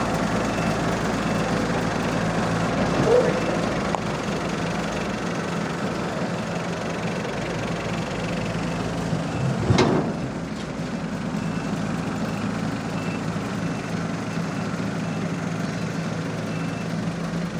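Combine harvester's diesel engine running steadily, with one sharp knock about ten seconds in.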